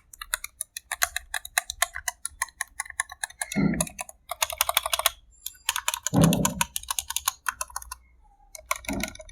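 Typing sound test on an SK61 mechanical keyboard with stock, unlubed Gateron optical red linear switches and ABS keycaps: a fast, dense run of key clacks with short pauses, stopping briefly about eight seconds in.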